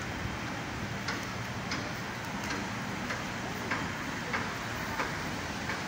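Footsteps on paved ground: a light click roughly every two-thirds of a second, at a walking pace, over a steady low outdoor background hum.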